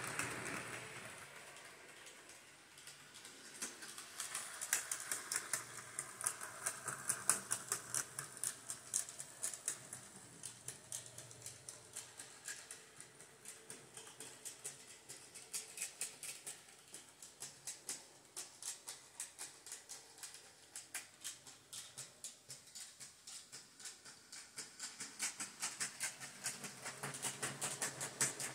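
Model train rolling along its track, its wheels clicking rapidly and fairly evenly over the rail joints. The clicks grow louder for a few seconds, fade, and build again near the end.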